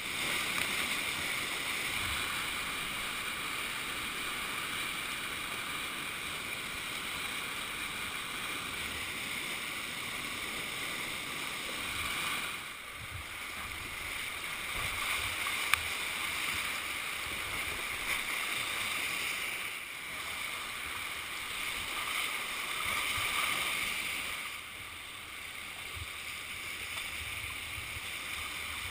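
Whitewater rapids rushing around a kayak: a steady hiss of churning river water that swells and eases a few times as the boat runs through drops and riffles, with one sharp knock about sixteen seconds in.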